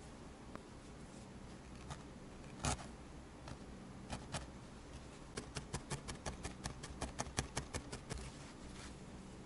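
A felting needle stabbing quickly into brown wool on a burlap-covered pad: a fast run of short crunchy pokes, about seven a second, for about three seconds in the second half. Before that, a single louder rustle as the wool is handled.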